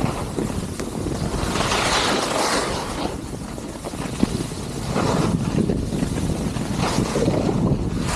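Wind rushing over the microphone while skiing, with swells of scraping hiss as the skis carve through turns on the snow.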